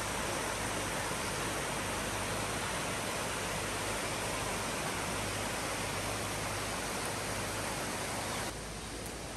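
Steady rushing of a flowing stream. About eight and a half seconds in it drops suddenly to a quieter, thinner hiss.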